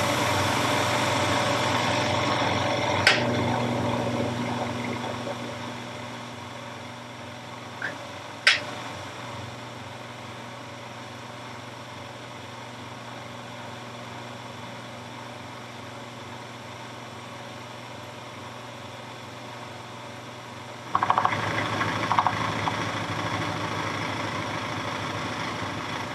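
Jet JMD-18 mill-drill's spindle running a half-inch carbide end mill at about 1600 RPM with a steady hum, with two sharp clicks in the first nine seconds. About 21 seconds in the sound turns louder and rougher as the end mill starts cutting a full-depth keyway slot in annealed 4140 steel at a slow feed.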